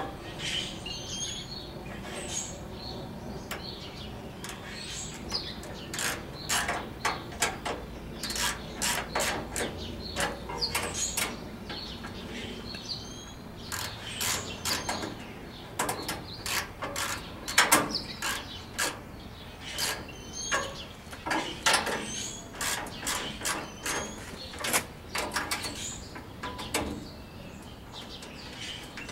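Hand socket ratchet with a size 11 socket clicking in short runs, with scattered metal clicks and knocks, as nuts are hand-tightened on a gas grill's steel frame.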